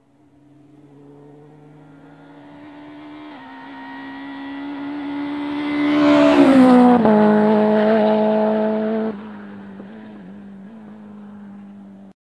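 A rally car approaching flat out along a stage road, its engine note growing steadily louder. It passes loudest about six seconds in, with the pitch dropping as it goes by. About nine seconds in it suddenly becomes quieter, and a fainter engine note carries on as it drives away.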